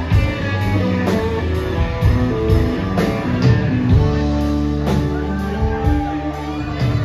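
Live band playing an instrumental passage: electric guitars to the fore over bass, keyboards and drums, with no singing.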